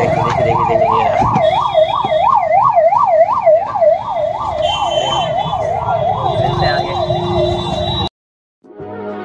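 Electronic siren warbling up and down about three times a second, loud and steady over low traffic rumble; it cuts off abruptly about eight seconds in and music starts.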